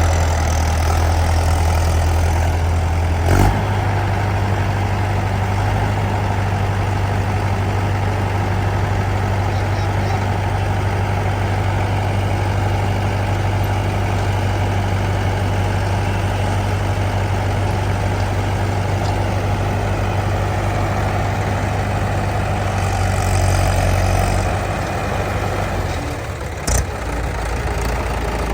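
Heavy diesel engine of a backhoe loader or tractor running steadily with a deep hum. A brief knock comes about three seconds in, with a slight change in engine note after it, and another short knock near the end.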